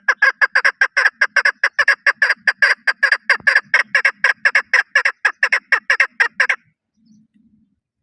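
Chukar partridge calling: a fast run of short, loud notes, about seven a second, that stops about six and a half seconds in.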